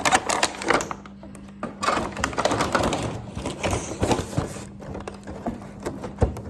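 A battery-powered toy robot's small motor and plastic gears clattering as it runs, a fast rattle of clicks that stops and starts, with a knock near the end.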